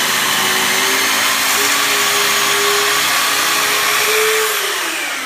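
Electric power saw running at full speed, trimming about a sixteenth of an inch off the end of a wooden stair tread, then spinning down with a falling whine near the end.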